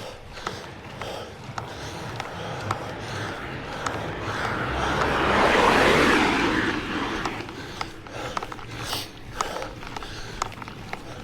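A cyclist breathing hard while climbing a steep hill, in short irregular puffs. Midway, a rushing sound swells up and fades away over about three seconds and is the loudest thing heard.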